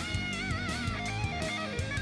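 Rock background music: an electric guitar lead with wavering vibrato notes over a steady drum beat.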